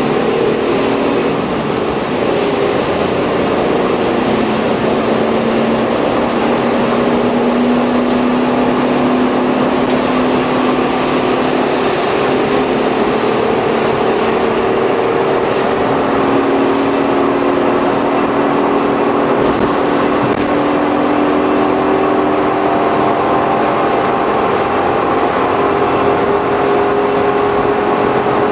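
Cabin running noise of a Suzuki Every kei van with the Auto Gear Shift automated manual gearbox, cruising at speed as heard from the bare rear cargo area. Its 660 cc three-cylinder engine and drivetrain drone with a heavy, low hum whose pitch rises slowly, over steady tyre and road noise.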